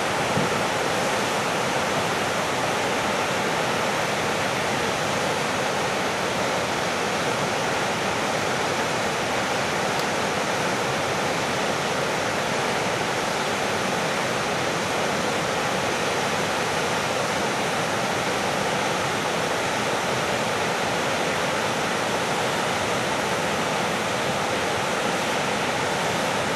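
A wide, tiered river waterfall: water pouring over rock ledges and churning through the rapids below, a steady, unbroken rush.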